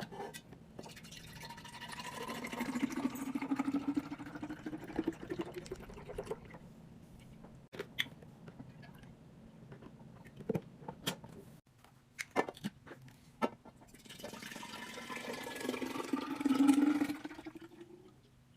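Liquid poured into a container twice, the pitch rising as each container fills. Between the two pours come short clicks and knocks of containers being handled.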